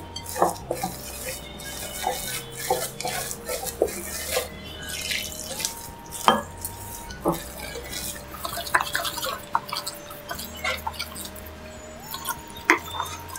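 Wooden spatula stirring thick semolina-and-curd batter in a glass bowl: wet squelching with repeated knocks and scrapes of the spatula against the glass. Near the end, water is poured into the batter from a steel tumbler.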